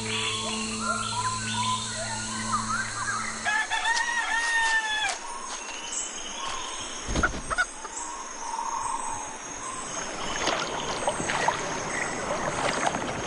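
A rooster crows once, about three and a half seconds in, with other birds calling around it.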